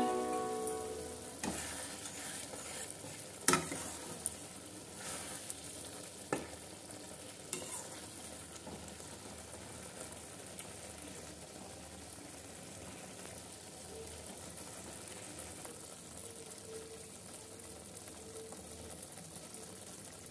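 Spinach and prawns frying quietly in a pan, a steady soft sizzle, with a few sharp clicks of a stirring utensil against the pan in the first several seconds.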